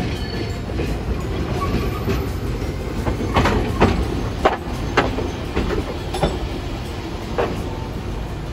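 Hiroshima Electric Railway 1900-series streetcar rolling into a stop across a track junction, with a steady low rumble of wheels on rail. A string of sharp clacks and knocks comes from the wheels crossing points and rail joints, densest from about three to five seconds in and tailing off near the end.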